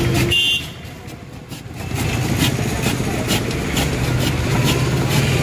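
Street traffic noise, with a short vehicle horn toot at the very start. The noise drops away about half a second in and returns at full level about two seconds in.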